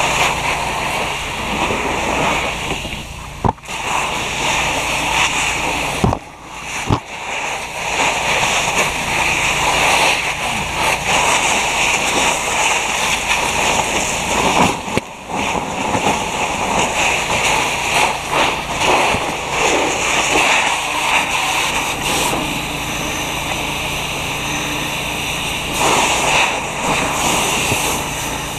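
Fire hose nozzle spraying a water stream onto a burning car: a continuous rushing, splashing hiss of water striking the hot metal and flames, broken by brief dips a few times.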